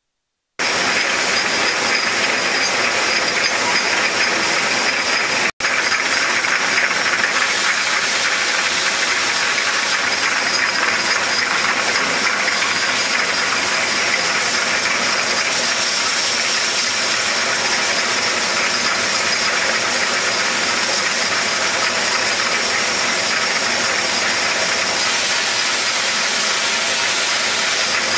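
Rotary glass-bottle rinsing, filling and capping line running: a loud, steady mechanical hiss and clatter that starts abruptly about half a second in and cuts out for an instant about five seconds in.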